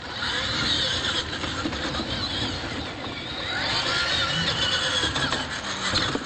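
Radio-controlled monster trucks' motors and gears whining as they race, the pitch wavering up and down, over a rough noise of tyres on dirt.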